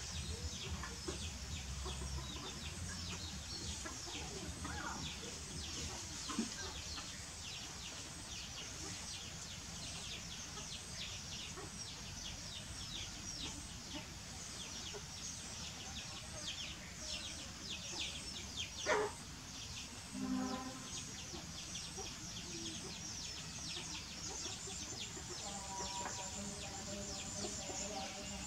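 Outdoor bird ambience: rapid high chirping throughout, one call sweeping up and down about nineteen seconds in, and lower clucking calls, fowl-like, about twenty seconds in and again near the end.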